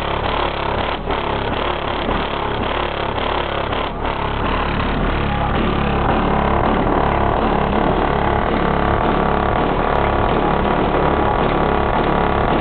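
A song with heavy bass played loud through the car's FI SSD 18-inch subwoofer in a sealed box, heard from outside the car. It gets a little louder about halfway through.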